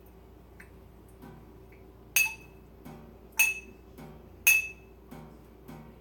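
Glass clinking three times, about a second apart, each strike ringing briefly, over softer regular taps.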